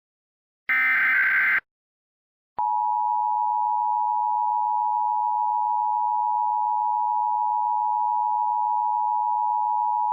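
Emergency Alert System tones: a one-second burst of SAME header data screech about a second in, the last of the header bursts. After a short gap, the steady two-tone EAS attention signal (853 and 960 Hz together) starts at about two and a half seconds and holds.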